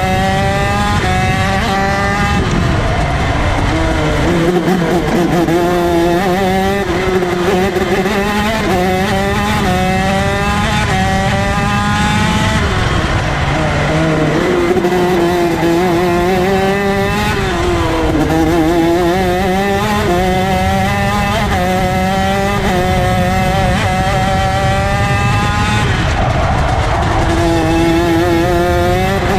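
125cc two-stroke ROK shifter kart engine at racing speed. It climbs in pitch in short rising sweeps, each broken off by a gearchange, and drops lower several times before climbing again.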